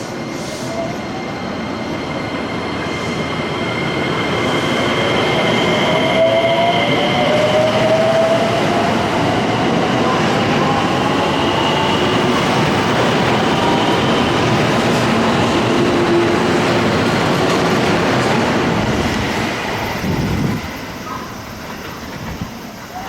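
JR West electric train moving past at close range: wheels running on the rails, with a whine from the traction motors that rises in pitch over the first several seconds. It grows louder, holds, and fades near the end.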